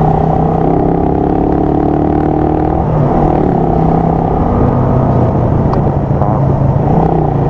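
Motorcycle engine running under way, picked up by a microphone wired inside the rider's helmet, with a steady rumble of wind and road noise. Its pitch rises gently for a couple of seconds early on as it picks up speed, then settles.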